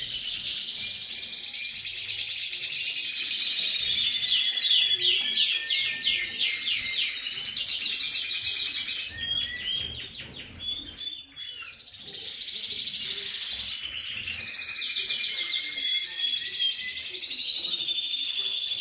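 Many small cage finches singing and twittering together: a continuous chorus of fast trills and warbling phrases that thins out briefly about halfway through.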